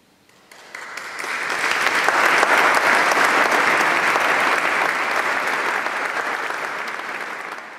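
Audience applauding: dense clapping that starts about half a second in, swells over the next second and eases slightly near the end.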